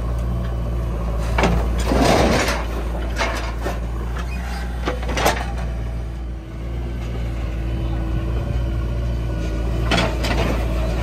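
JCB 3DX backhoe loader's diesel engine running steadily while working the hydraulic arm. Short rushing bursts of mud and clods pour from the bucket onto a tractor trolley several times, the loudest about two seconds in.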